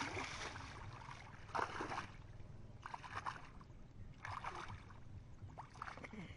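Shallow muddy water sloshing and splashing around the legs of someone wading and dragging a fishing net through it, in rough surges about every second and a half, over a steady low rumble.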